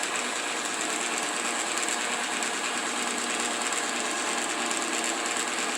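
Electric mixer running steadily, beating brownie batter until well blended, with a dense mechanical gear whir that holds an even level.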